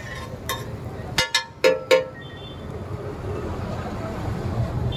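Steady street traffic rumble, with a quick cluster of short, sharp ringing hits and toots about a second in.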